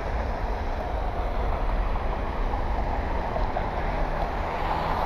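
Jet engines of a UPS Boeing 757 freighter on its departure: a steady jet noise with a deep rumble, growing a little louder with a low hum coming in near the end.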